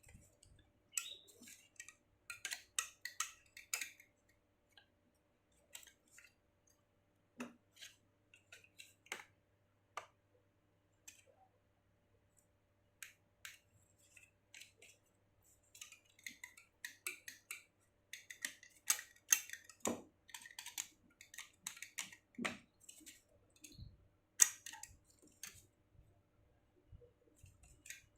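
Handling noises from unpacking a parcel: irregular clicks, taps and crinkly rustles in clusters, busiest about a second in and again from about the middle to near the end.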